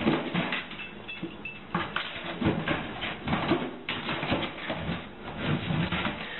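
Pet-door flap clattering while a cardboard box in plastic wrap scrapes and rustles through it, shoved by a large dog. Irregular knocks and rustles, several a second.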